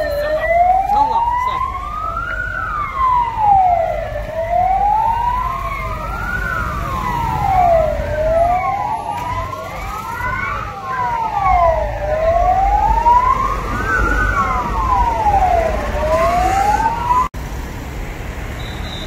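Emergency vehicle siren wailing, rising and falling slowly about once every four seconds, with a second, fainter siren out of step crossing it. The siren cuts off suddenly near the end, leaving the rumble of engines and traffic.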